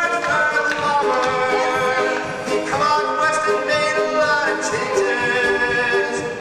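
Musical theatre cast singing together in chorus: long held notes that change pitch every second or two.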